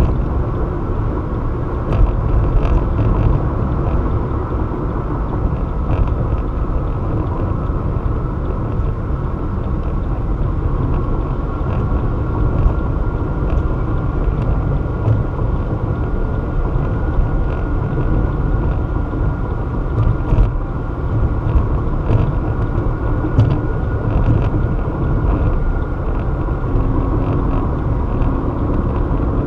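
Steady road noise of a car driving at highway speed, heard from inside the cabin: a low rumble of tyres and engine, with a few faint clicks scattered through it.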